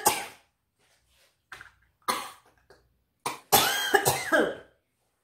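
A woman coughing hard in several separate fits, the longest and loudest about three and a half seconds in.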